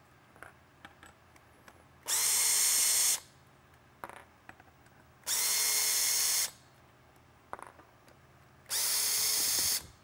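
Cordless drill/driver backing out screws, three runs of about a second each with a steady motor whine. Small clicks and taps come between the runs.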